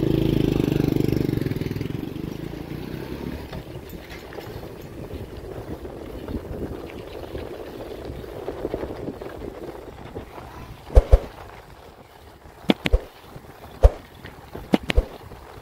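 A motorcycle engine passes close by and fades away over the first few seconds. After that comes steady wind and rolling noise from a bicycle on a dirt road, with a handful of sharp clicks in the last few seconds.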